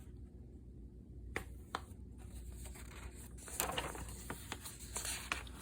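Paper booklet pages being handled and turned: a few faint rustles and light taps over a low steady hum.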